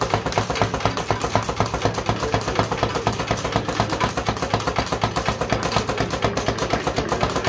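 Rapid, even mechanical clicking, about eight clicks a second, from a 1983 JPM Superbank fruit machine, with a steady hum underneath.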